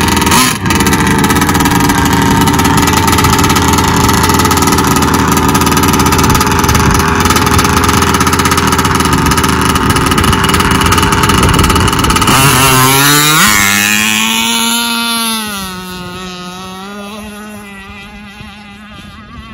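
RC hydroplane's two-stroke engine running loud and steady. About two-thirds through it revs up sharply as the boat takes off, then the pitch wavers and the sound fades as the boat speeds away across the water.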